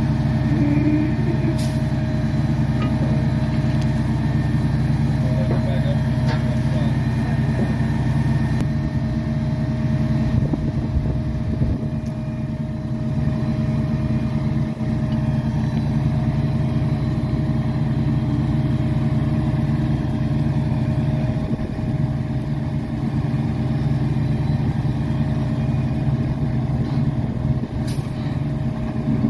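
Diesel engine of a heavy work truck running steadily at constant speed, with a couple of faint knocks.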